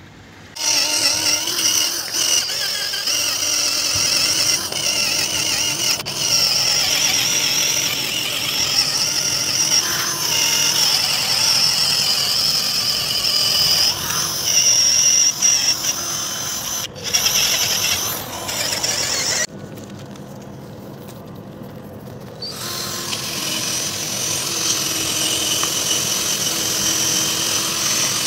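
Cordless drill spinning a foam polishing pad with paste over a plastic headlight lens, a steady high whine that starts about half a second in. It goes quieter for about three seconds around two-thirds of the way through, then picks up again.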